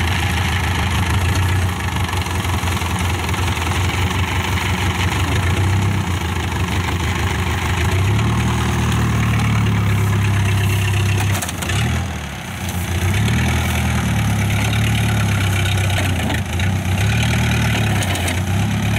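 Diesel engine of a Kubota DC-95 rice combine harvester running steadily. Its speed picks up about eight seconds in, drops briefly around twelve seconds, then rises and falls.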